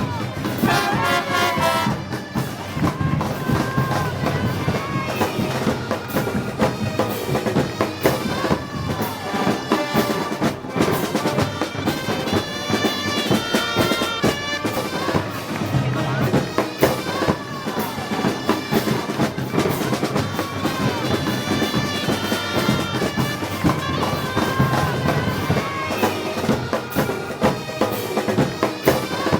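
Festival brass band playing: trumpets and trombones over drums and cymbals keeping a steady beat.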